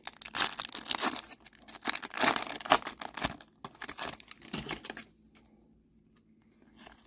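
Foil Pokémon booster pack wrapper crinkling and tearing open in repeated bursts of rustling, which die away about five seconds in to near quiet with a few faint clicks.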